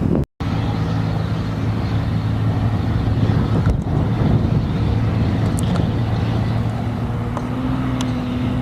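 Light aircraft piston engine running steadily at low power, a droning hum. It follows a split-second dropout near the start.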